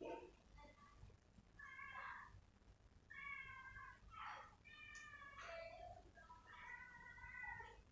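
A cat meowing repeatedly: a string of short, faint meows, roughly one a second.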